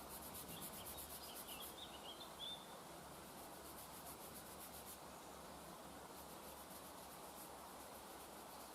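Faint, repeated rubbing strokes of a Leatherman Signal's blade being stropped on a piece of wood loaded with stone slurry, most quickly in the first couple of seconds, then again in short spells.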